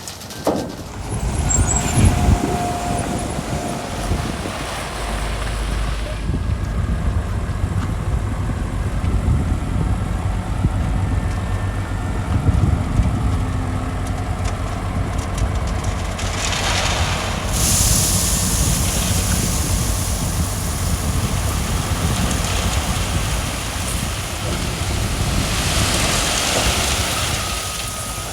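Heavy diesel earthmoving machinery working, a motor grader and bulldozer spreading gravel: a steady low engine rumble, with a few knocks in the first seconds and a louder rushing noise partway through and again near the end.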